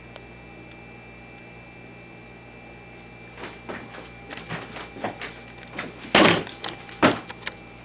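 A faint steady electrical hum, then from about halfway a run of short knocks and rubbing handling noises, with two loud thumps near the end.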